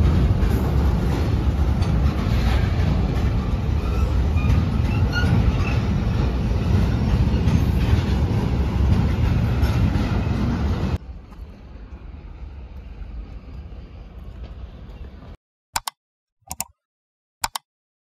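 Container freight train of flat wagons running past at speed: a loud, steady rumble and rattle of wheels on rails. About 11 seconds in it drops abruptly to a much fainter rumble and cuts out, followed near the end by three short clicks of a subscribe-button animation effect.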